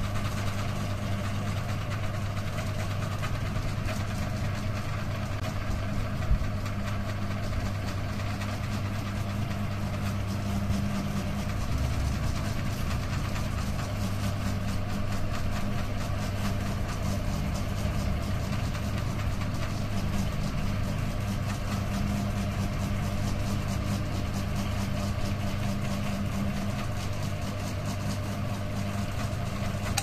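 Three-blade ceiling fan running at speed: a steady, unbroken low hum from its motor.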